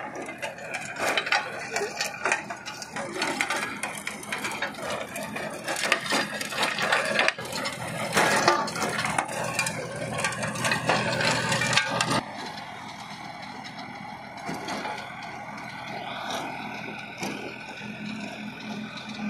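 VST compact diesel tractor running under load with a rear rotavator tilling dry, clumpy soil: a dense clatter and crunch of blades breaking the ground for about the first twelve seconds, then a sudden drop to a quieter, steadier engine hum.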